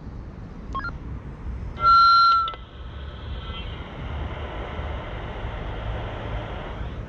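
Ailunce handheld two-way radio: a couple of short keypad beeps, then a loud steady beep lasting under a second about two seconds in. A steady hiss of radio noise follows from its speaker and cuts off near the end.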